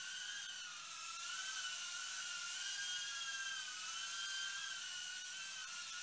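FuryBee F36 mini quadcopter drone in flight: a steady high whine from its motors and propellers, the pitch drifting slowly up and down as the throttle changes.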